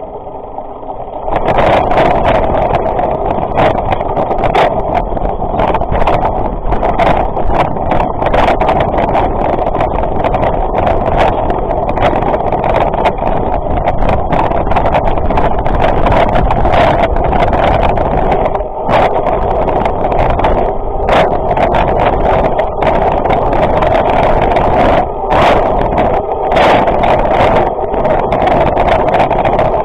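Mountain bike descending fast over rough grass: wind rushing over the frame-mounted action camera and the knobbly tyres rumbling, with frequent sharp knocks and rattles as the bike jolts over bumps. The noise jumps sharply louder about a second and a half in.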